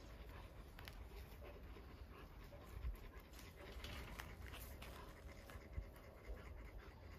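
A dog panting faintly.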